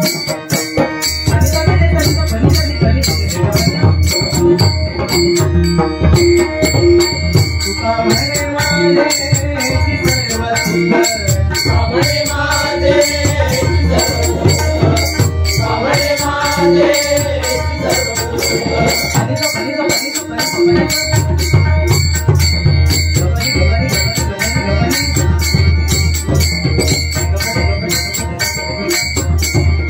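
Instrumental passage of a Marathi bhajan: pakhwaj and tabla drumming in a fast, dense rhythm with jingling hand percussion, over held melody notes.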